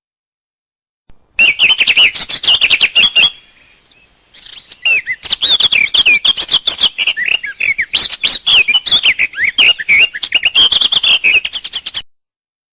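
A bird singing a fast, varied string of chirps and short sliding whistles, in two stretches: a short one starting about a second in, then a longer one that runs until near the end.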